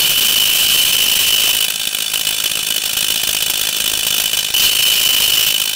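Pillar drill boring into thick steel plate, running steadily with a high-pitched tone over the cutting noise. It eases a little in the middle and is louder again near the end.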